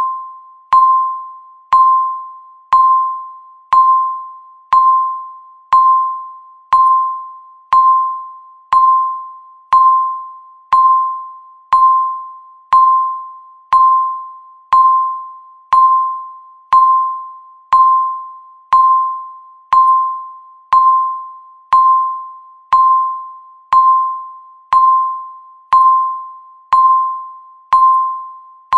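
Countdown timer beep: one clear electronic tone struck once a second, each starting sharply and fading away before the next, marking each second left on the timer.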